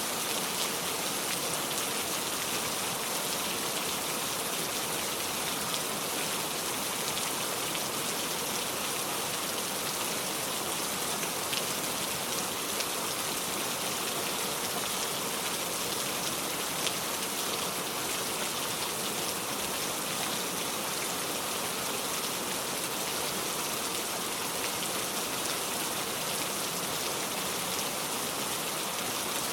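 Steady rain falling, an even hiss with scattered drops pattering on a surface.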